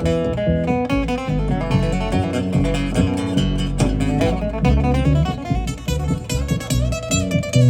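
Instrumental break: acoustic guitar playing a fast run of picked notes over strummed chords.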